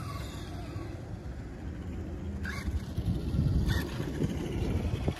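Traxxas Slash 2WD radio-controlled truck driving toward the camera on concrete, its electric drivetrain and tyres growing louder as it closes in. Two short clicks come around the middle.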